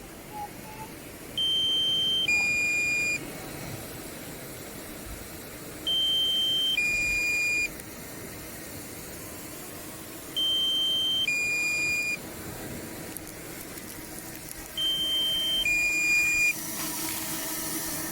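Drone remote controller's two-tone warning beep: a higher tone followed by a lower one, each just under a second, the pair repeating four times about every four and a half seconds, over a steady hiss that grows louder near the end.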